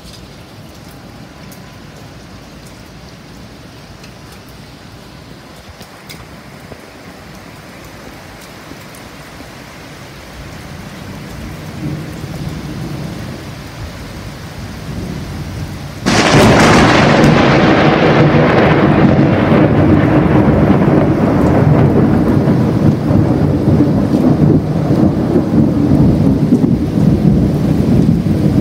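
Heavy rain falling steadily during a thunderstorm, with a low rumble of thunder building after about ten seconds. About halfway through comes a sudden loud thunderclap, followed by a long rolling rumble of thunder over the rain.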